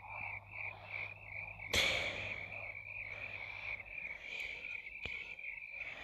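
Night-time animal chirping on a cartoon soundtrack: a steady rhythmic chirp at about three pulses a second, with a single sudden loud hit a little under two seconds in.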